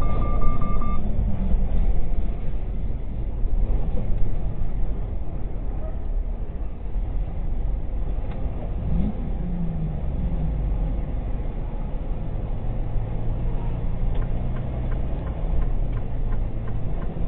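Steady low rumble of a vehicle's engine and tyres driving on a wet highway, heard from inside the cab. A short rise and fall in pitch comes around nine seconds in, as a truck runs close alongside.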